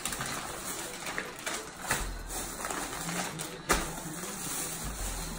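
Thin plastic grocery bag rustling and crinkling as items are pulled out of it by hand, with a sharp tap about three and a half seconds in.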